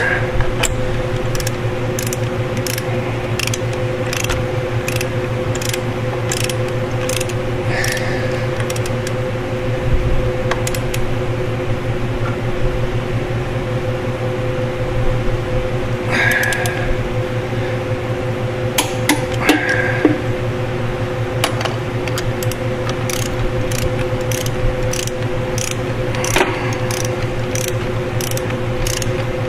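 Ratchet of a torque wrench clicking in short irregular runs as bolts at the centre of the flywheel are tightened, over a steady hum.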